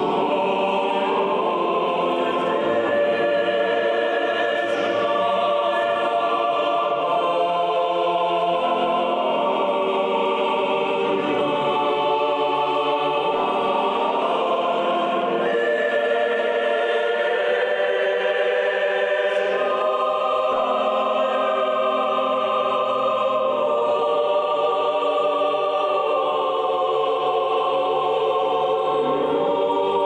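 A choir singing slow, sustained chords, with no beat.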